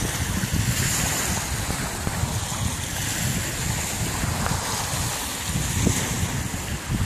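Small waves washing onto a sandy lake shore, with wind buffeting the microphone in a steady, uneven low rumble.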